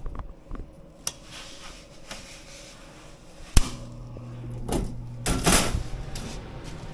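A sharp snap, like a circuit breaker or disconnect being switched on, followed by a steady electrical hum for a couple of seconds as power returns to the heat pump, with scattered knocks and rustles of handling around it.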